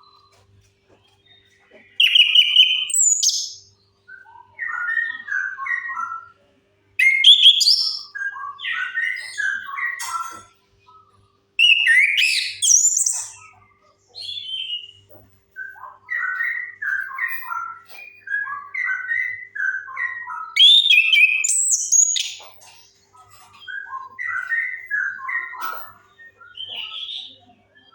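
Orange-headed thrush singing: a string of phrases, each a second or two long, of quick varied whistles and chattering notes, some sliding up high, separated by short pauses.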